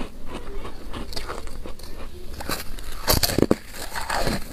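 Biting into a ring of soft, powdery freezer frost ice: small crackles, then a loud cluster of crunches a little after three seconds in as a bite breaks off.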